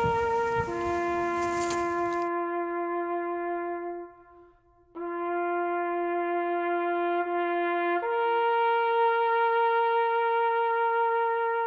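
Background music: a solo wind instrument playing a slow melody of long held notes, with a short break about four seconds in. For the first two seconds, outdoor noise with a few clicks runs underneath.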